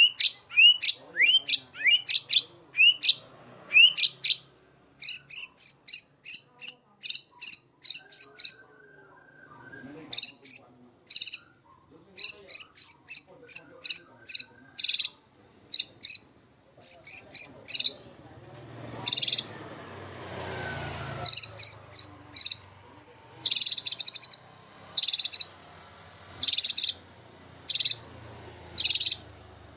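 White-rumped shama singing a varied 'full isian' song. It opens with quick rising whistled sweeps, about two a second, then switches to long runs of short, high, clipped insect-like chips in separate bursts, the mimicked fill-in phrases this song is valued for.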